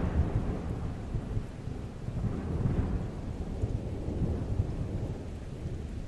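Rolling thunder: a low, uneven rumble that slowly dies away, with a faint rain-like hiss over it.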